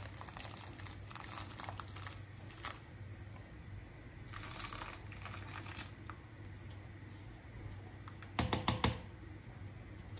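Raisins tipped out of a plastic bowl into a large pot of simmering liquid: light, irregular crackly clicks and patters, with a short louder clatter about eight seconds in. A steady low hum runs underneath.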